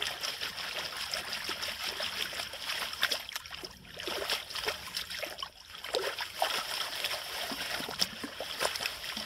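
Shallow creek water splashing and trickling, with short irregular sloshes and splashes.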